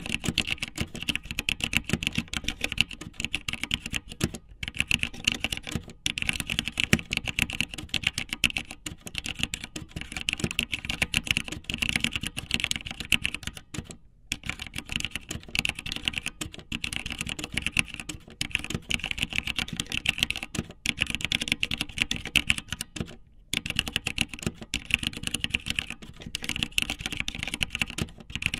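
Rapid, continuous clicking and tapping, dense and uneven, broken by a few short pauses.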